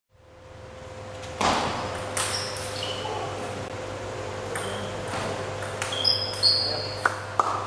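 Table tennis ball clicking off bats and table in a quick rally that starts near the end, in a large echoing hall. Earlier there is a single knock about one and a half seconds in and a few short high squeaks, over a steady hum.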